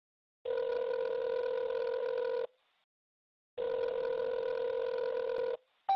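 Telephone ringing tone heard down the line: two long, steady beeps of about two seconds each, a second apart, then a click as the call is picked up near the end.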